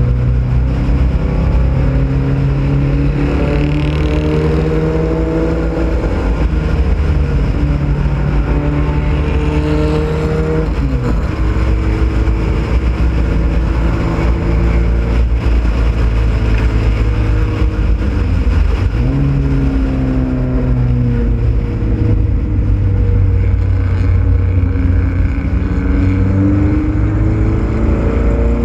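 Ford Pinto race car's engine heard on board under hard acceleration. Its pitch climbs through each gear and drops sharply at the shifts, twice around the middle, over a steady rush of wind and road noise.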